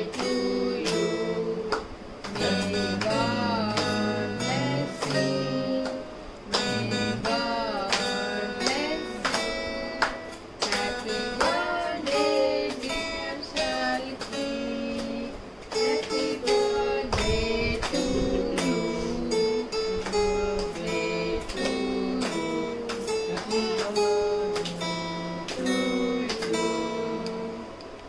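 Acoustic guitar played as a song, with strummed chords and picked notes, and a sung or melodic line above it. It quietens near the end.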